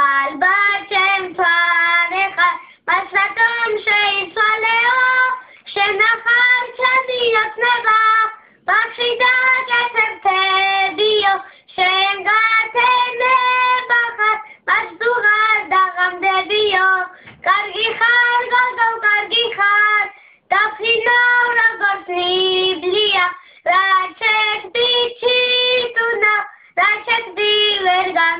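A child singing a song in phrases of a few seconds, with short breaks between them.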